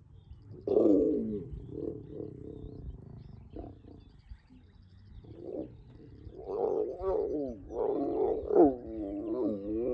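Calls of a large wild animal: one loud call falling in pitch about a second in, a few weaker grunts after it, then a run of repeated falling calls over the last few seconds.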